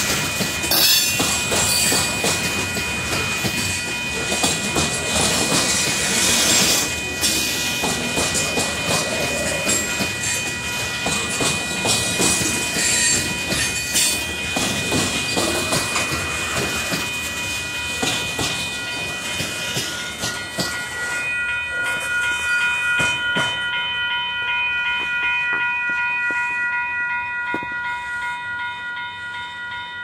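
Covered hopper cars of a Union Pacific grain train rolling past, steel wheels clacking and rumbling over the rails; the train noise fades about two-thirds of the way through as the last cars go by. A grade-crossing bell rings steadily throughout and stands out once the train has passed.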